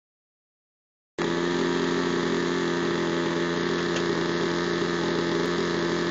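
.46 two-stroke glow model-airplane engine on 10% nitro fuel running at a steady, constant speed. The sound cuts in about a second in with the engine already running.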